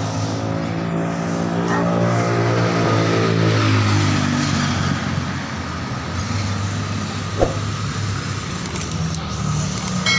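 Motor vehicle engine running steadily, its hum fading out after about four seconds and leaving a steady noise, with a single sharp click later on.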